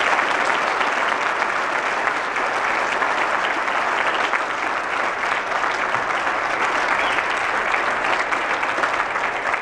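Congregation applauding: steady, dense clapping from many hands, a little louder in the first couple of seconds.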